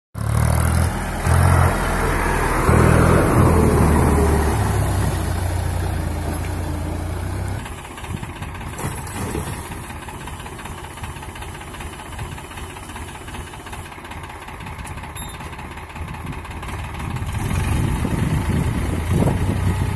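Powertrac 445 DS Plus tractor's diesel engine running, loud with a strong low drone for the first several seconds. About eight seconds in it drops in level to a noisier sound of the engine with a rotary tiller churning through water.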